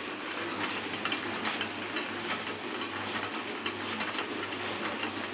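Toko mini offset printing press running steadily, its mechanism clattering in a quick, even rhythm of clicks. It is turning normally on its freshly cleaned drive motor, which before the repair would only whine without turning.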